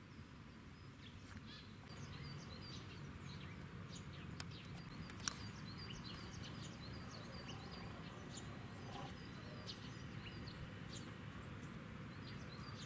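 Small birds chirping repeatedly, short high calls scattered throughout, over a steady low background rumble. A single sharp click about five seconds in.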